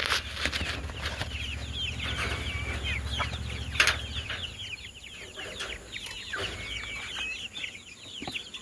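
A flock of young chickens peeping: many short chirps, each sliding down in pitch, overlapping continuously. A single sharp knock about four seconds in.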